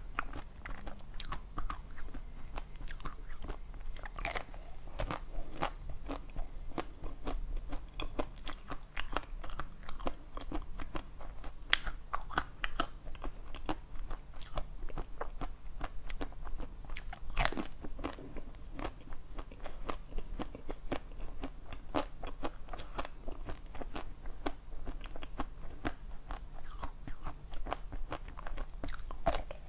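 Close-miked biting and chewing of a purple round dessert: a steady run of quick, crisp crunches, with louder snapping bites about four seconds in, near the middle and near the end.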